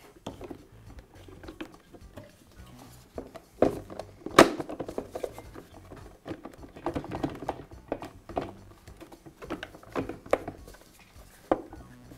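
Plastic motor housing of a Bostitch pancake air compressor being shifted by hand and seated over the pump, a scattered series of light knocks and rubs. One sharper knock comes about four seconds in.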